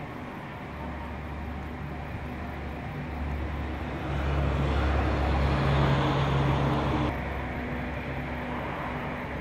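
Motor vehicle engine running with a low steady hum; it swells louder from about four seconds in and drops off suddenly about seven seconds in.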